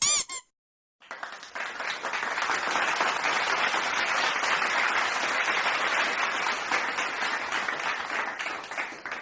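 Applause sound effect: a crowd clapping steadily for about eight seconds, starting about a second in and fading out at the end. Just before it, a brief wavering pitched tone sounds twice.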